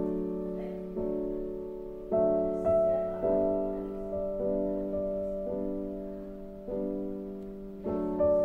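Slow background piano music: soft chords and melody notes struck about once a second, each dying away before the next.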